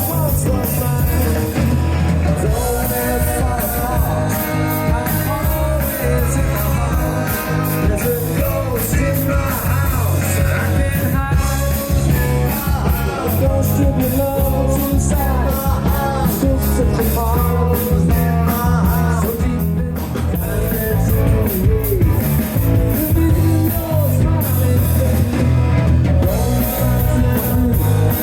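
Live rock covers band playing loud through a pub PA, with drums, bass and electric guitar. It is picked up by a phone close to the speakers, so the sound is very loud and squashed.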